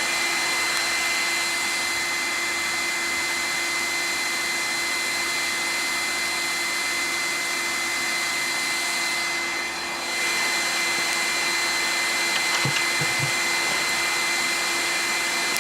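Electric air blower running steadily into a forge, a constant rush of air with a fixed motor whine. The sound dips briefly about ten seconds in, then comes back up.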